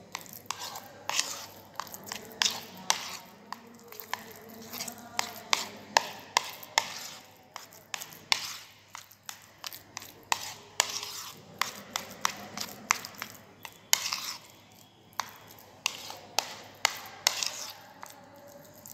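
Metal spoon stirring and working a thick mashed-potato mixture in a bowl, the spoon knocking and scraping against the bowl in quick, irregular clicks.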